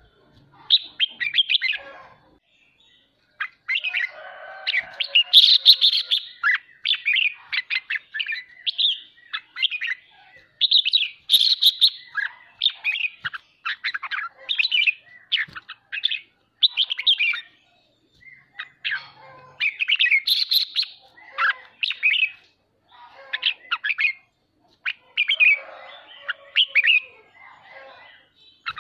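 Red-whiskered bulbul singing and chattering: quick bursts of bright, warbled chirping phrases with short pauses between them, the bulbul's excited challenge chatter.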